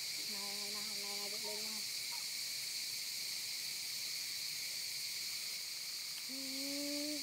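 Steady, high-pitched drone of an insect chorus from the surrounding forest. Two short, low, steady calls sound over it, one near the start and one near the end.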